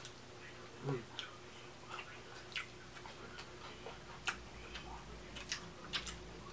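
A person chewing soft lobster tail meat with scattered wet mouth clicks and smacks, about one every half second, over a faint steady hum.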